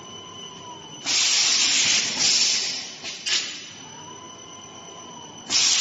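Automatic non-woven apron making machine running through its cycle: a loud hiss about a second and a half long, repeating about every four and a half seconds, with a sharp click between the hisses and a faint steady whine underneath.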